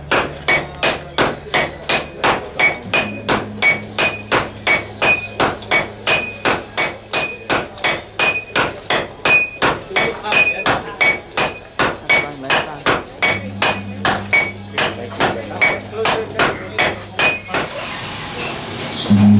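Hand hammers beating red-hot metal on an anvil at a gong smith's forge: a steady run of metallic strikes, about three a second, many with a short high ring. The hammering stops near the end.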